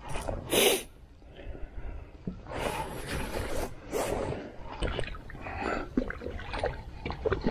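A man's heavy breaths and huffs in short irregular bursts, the loudest about half a second in, as he strains to fight a hooked fish on a spinning rod.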